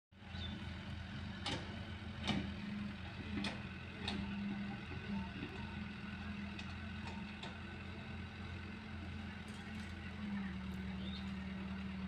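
Diesel engine of an excavator loading earth into a tractor trailer, running steadily, with several sharp knocks in the first four seconds.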